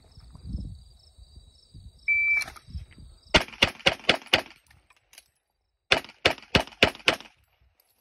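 A shot timer's short beep, then a Glock 35 pistol in .40 S&W fires five quick shots, pauses about a second and a half for a magazine reload, and fires five more quick shots.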